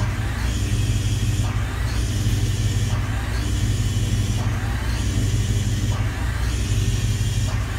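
Motorhome machinery running with a steady low hum while its hydraulic leveling jacks are driven down, and a higher rushing noise swells and fades about every one and a half seconds.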